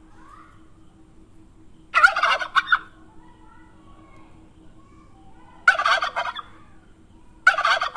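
Turkey gobbling: three short rattling gobbles a few seconds apart.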